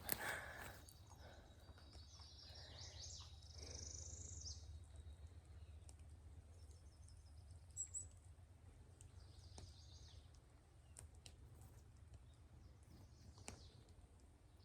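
Faint wild songbird chirps and calls: a run of chirps from about a second in to about four and a half seconds, then a few scattered calls later, over a low steady background rumble.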